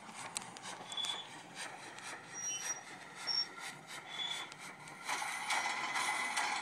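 Model B&O 0-10-0 steam locomotive with a TCS WOW Sound decoder playing steam-engine sounds as it runs, with scattered clicks and a few short high squeaks. About five seconds in, a louder steam hiss starts.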